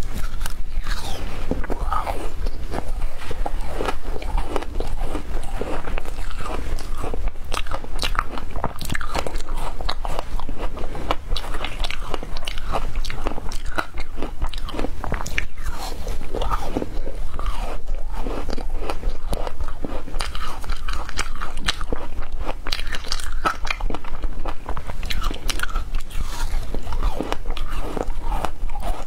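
Frozen passion-fruit ice being bitten and chewed: continuous, irregular crunching and crackling of hard ice between the teeth.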